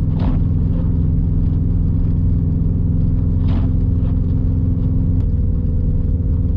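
Subaru WRX STI's turbocharged flat-four running steadily as the car drives through snow, with two short noises over it, about a third of a second in and about three and a half seconds in.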